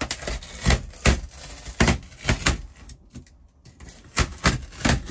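A run of about a dozen sharp, irregular snaps and knocks as small white pieces are pulled off the plastic trim around a camper's roof vent, with a short lull midway.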